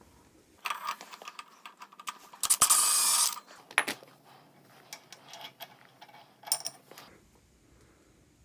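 Metal clinks and knocks of hand tools on a Dana 44 front hub as the outer lock nut is worked off, with a short rasping burst about three seconds in and a few sharper clicks after it.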